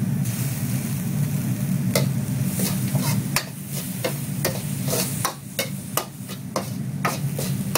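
A spoon or spatula stirring minced chicken in a pan, clicking and scraping against the metal about twice a second, as the lime juice and fish sauce are mixed in. A steady low hum runs underneath.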